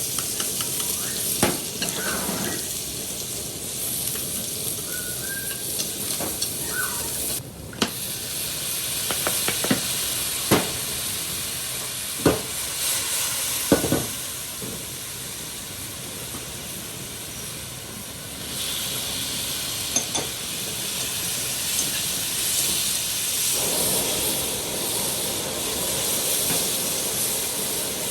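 Food sizzling in hot oil in a pan, with a metal utensil stirring and scraping and clinking against the pan several times.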